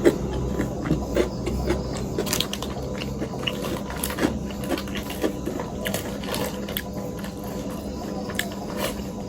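Close-miked eating of keema noodles: chewing and slurping with many scattered small clicks and crackles, over a steady low hum.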